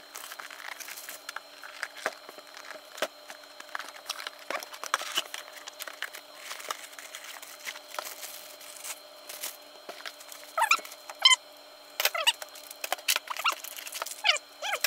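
Plastic packaging of a boxed AIO liquid CPU cooler crinkling and rustling as it is unwrapped and unpacked by hand, with many small clicks and taps of cardboard and parts. Short squeaks come in the second half, the loudest about eleven seconds in.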